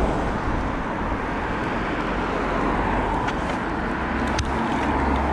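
Steady roadside traffic noise heard while riding along a road, with two light clicks about three and four and a half seconds in.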